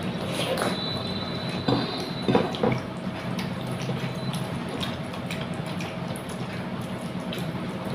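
Wet eating sounds from a meal of rice with katla fish curry: squishy, liquid smacks and clicks of food being mixed and chewed, loudest in a small cluster about two seconds in, over a steady background hum.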